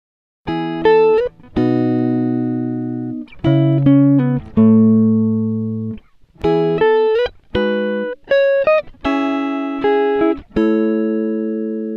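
Background music of plucked string notes, guitar-like, in a slow melody; each note starts sharply and rings out. It begins about half a second in.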